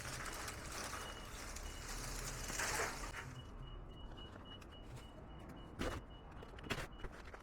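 Outdoor ambience: a swell of rustling noise about three seconds in, then two brief rustles or knocks near the end, over a faint high tone that keeps switching on and off.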